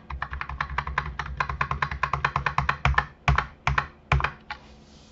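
Computer keyboard key tapped rapidly over and over, about nine clicks a second for three seconds, then a few louder, slower keystrokes.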